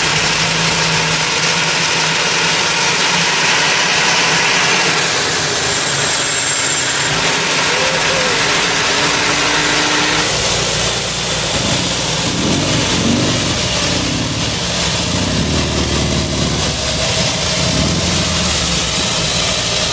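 EcoJet's helicopter gas-turbine engine running: a high turbine whine climbs over the first few seconds, then holds steady over a loud rushing exhaust noise.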